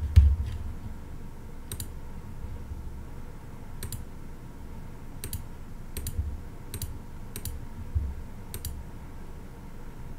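A computer mouse makes about seven single sharp clicks at irregular intervals. A few dull low thumps come with them, the loudest just after the start.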